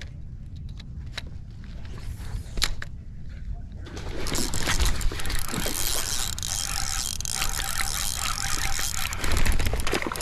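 Spinning reel being cranked to retrieve a lure: a few scattered clicks at first, then a steady whirring of the reel's gears from about four seconds in.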